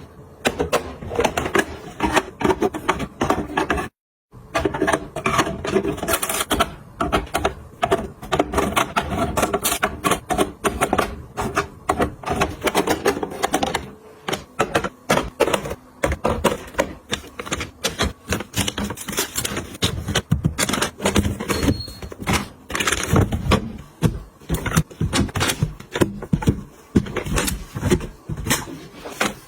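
Food packaging and plastic containers being handled and set down while a refrigerator is restocked: a dense, uneven run of clicks, taps and rustles, broken by a brief silence about four seconds in.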